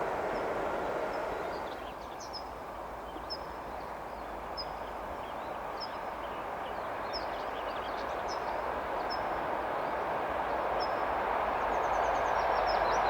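Rolling noise of a train on the line, dipping about two seconds in and then growing steadily louder. A small bird repeats a short high chirp about once a second over it.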